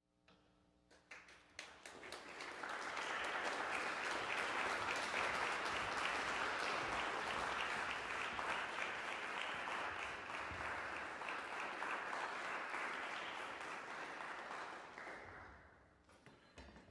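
Audience applauding: a few scattered claps at first, swelling into full, steady applause within about three seconds, then thinning out and dying away near the end.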